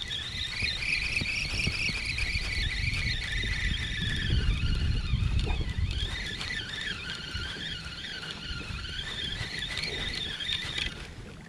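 Spinning reel being cranked, its gears giving a high, wavering whine that cuts off suddenly near the end as the cranking stops. Low wind rumble on the microphone underneath.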